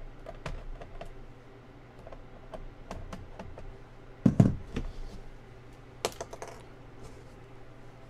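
Small clicks and taps of a Phillips screwdriver and screws being worked on the plastic underside of a laptop, with a louder knock about four seconds in and a quick clatter of clicks about two seconds later.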